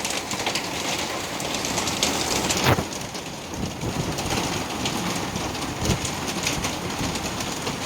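Hail pelting down: a dense hiss of falling stones with many sharp ticks as they strike surfaces, and one louder knock about two and a half seconds in.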